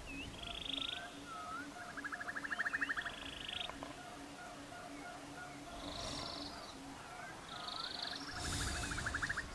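Birds chirping, with short rising notes and several buzzy rapid trills, over an even low pulsing at about three beats a second.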